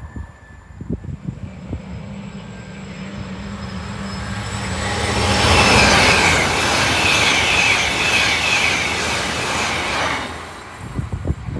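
A train passing close by at speed. The wheel and rail noise builds over a few seconds to a loud rush for about four seconds, then drops away sharply as the train clears.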